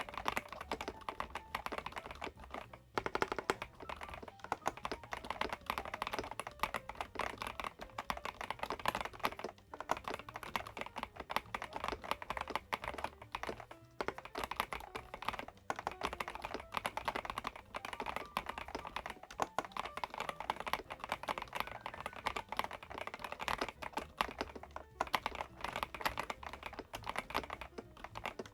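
Fast, continuous typing on an Epomaker DynaTab 75X gasket-mounted mechanical keyboard with Epomaker Flamingo switches: dense, irregular keystrokes with brief pauses.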